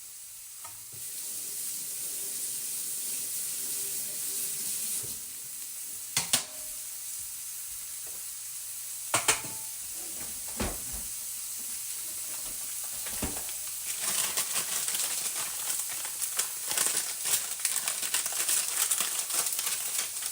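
Stir-fried cabbage, onion and carrot sizzling in a frying pan, with a few knocks of a utensil against the pan. In the last third the sizzle grows louder and crackles densely as the food is stirred.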